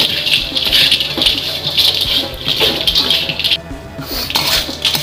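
A spatula stirring and scraping crisp fried meatball strips (basreng) around a wok, a dry, busy rattle as the strips are tossed in their chili seasoning. The rattle breaks off briefly about three and a half seconds in, then picks up again.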